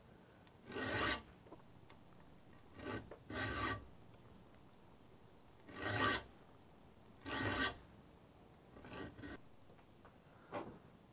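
Hand file rasping across the teeth of a crosscut hand saw held in a saw vise, sharpening it. About seven short strokes, loosely in pairs, at two strokes per tooth.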